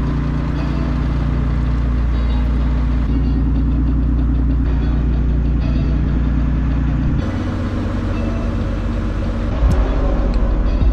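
Boat engine running steadily at low revs, with a deep, even drone whose tone changes about seven seconds in.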